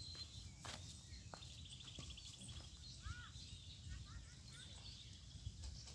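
Quiet outdoor ambience with small birds chirping, a rapid trill about a second and a half in and a pair of short arching calls near the middle, over a low background rumble.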